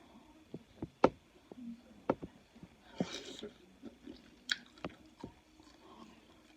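Close-mic chewing of a seafood boil: wet mouth clicks and lip smacks scattered through, with a short hissy slurp or rustle about three seconds in.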